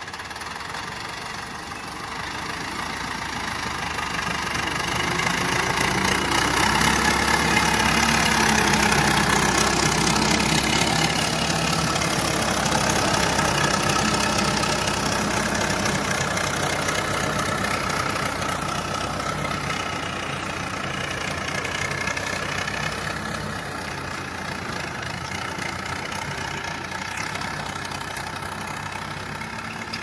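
Diesel farm tractor pulling a tine cultivator through hard, dry ground. Its engine grows louder as it comes close, is loudest from about six to fourteen seconds in, then fades as it moves away.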